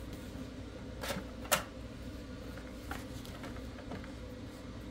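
Plastic clicks from the cover of an HPRT photo printer's paper compartment being opened: two sharp clicks about a second and a second and a half in, then a few fainter taps, over a faint steady low hum.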